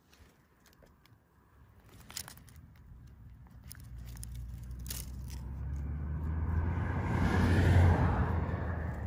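A road vehicle approaching and passing, its engine and tyre noise swelling to a peak near the end and then easing slightly. A few sharp clicks come in the first half.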